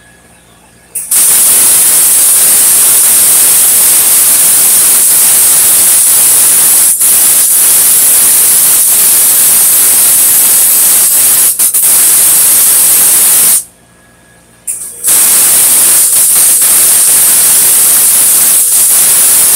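Electric welding arc burning with a loud, steady hiss. It strikes about a second in, breaks off for about a second and a half past the middle, then is struck again and runs on.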